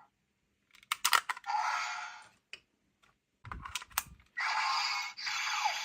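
Sharp plastic clicks and knocks from buttons and parts of a toy voice-changer transformation device being worked, with short stretches of its electronic sound effects from the small built-in speaker in between.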